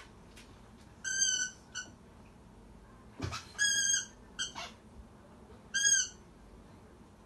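A corgi whining in short, high, steady-pitched cries, five in all, three longer and louder than the others.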